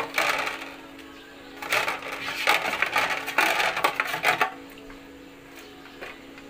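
A spatula stirring and scraping in a pan of cabbage stew, in two bouts of scraping and clinking: a brief one at the start and a longer one from just under two seconds in to about four and a half seconds. A faint steady hum runs underneath.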